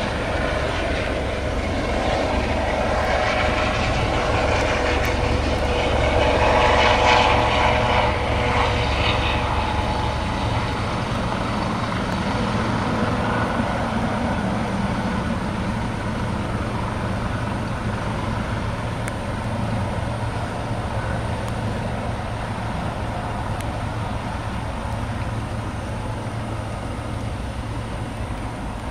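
Jet airliner engines passing, growing loudest about seven seconds in and then fading to a steady rumble.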